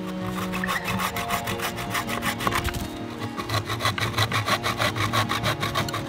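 Small hand saw cutting through a branch in quick, even back-and-forth strokes, with a short pause about three seconds in.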